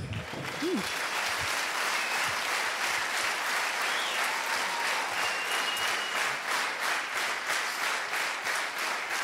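Large audience breaking into steady applause.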